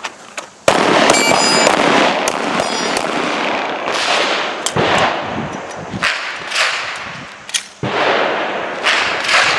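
A string of handgun shots fired at an uneven pace, each a sharp crack followed by a loud noisy tail.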